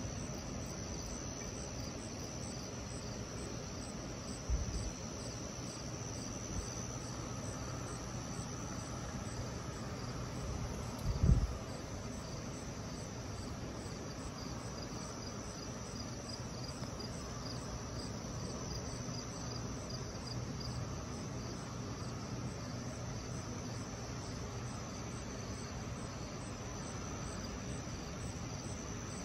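Crickets chirping steadily in the night air over a steady low hum, with two short low thumps, the second and louder one about eleven seconds in.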